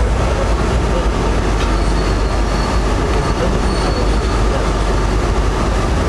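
Indian Railways express train pulling out of a station, heard from inside a passenger coach: a steady rumble of the wheels on the track, with a faint thin high whine from about two seconds in until past the middle.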